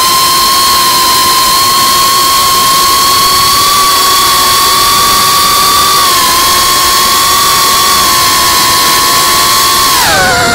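Brushless motors and propellers of a 3-inch FPV cinewhoop (iFlight Cinelog 35) whining steadily at a high pitch over a steady hiss, as heard by its onboard camera. Near the end the pitch drops sharply as the throttle comes off.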